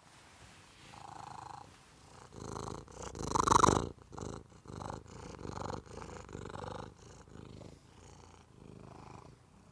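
Tabby cat purring loudly, in swells about once a second, loudest a little over three seconds in as its face comes right up to the microphone.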